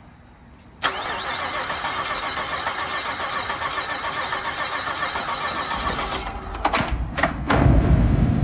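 2003 Nissan Xterra's 3.3-litre V6 cranked over on the starter for about five seconds without catching, the no-start still there after a new ignition coil. Near the end the sound breaks off a few times and gives way to a deep rumble.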